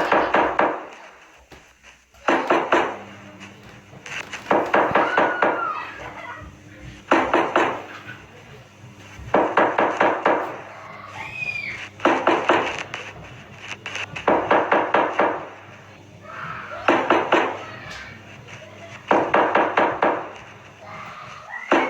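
Rapid knocking in short bursts of several quick knocks, each burst repeating about every two seconds.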